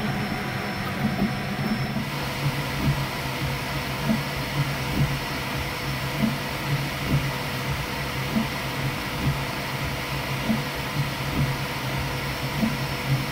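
Creality K1 Speedy FDM 3D printer printing at full speed: a steady whir with short, frequent swells in loudness as the print head makes its rapid moves.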